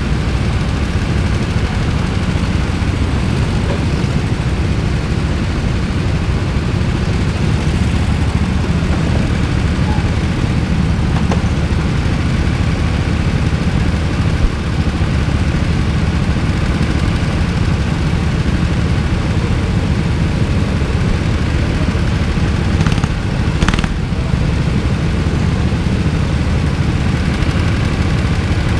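Rental go-kart engines idling together, a steady low drone heard from the seat of one kart.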